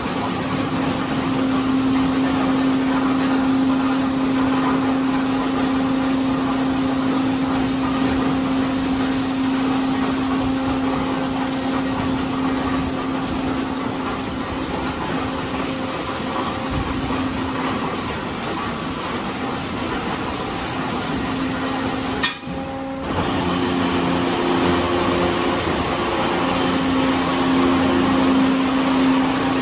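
Autec 260 rollover car wash gantry at work, its spinning side brushes running over a car with a steady motor hum underneath. About two-thirds of the way in there is a sharp click and a brief drop, after which the machine carries on with a changed hum.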